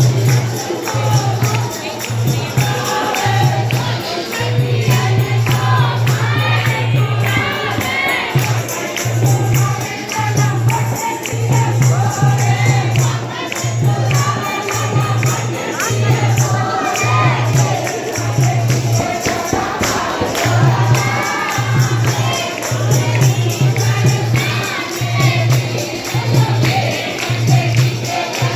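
A crowd of devotees singing a devotional chant together, with jingling hand percussion and a low beat pulsing about once a second.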